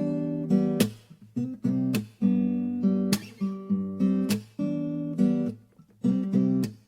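Music: an acoustic guitar strumming chords in a steady rhythm, with no singing.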